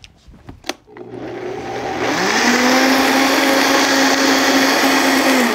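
Countertop blender blending a liquid marinade: after a click, the motor starts at low speed, ramps up to a steady high-speed whine about two seconds in, and starts to spin down at the very end.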